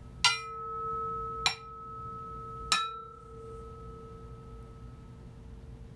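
Metal Sony PS-X800 turntable platter struck three times with a wooden dowel, about a second apart. Each tap sets it ringing in two clear tones, a lower one and a higher one. The higher tone dies away within a few seconds, and the lower one hangs on, showing how little damping the platter has.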